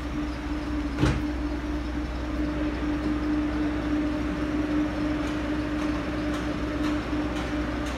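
Steady drone of a running motor, a constant mid-pitched hum over a low rumble, with a single sharp click about a second in.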